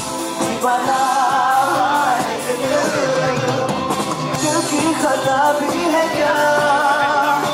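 Male singer performing a Bollywood song live through a handheld microphone, with long held notes that bend and waver.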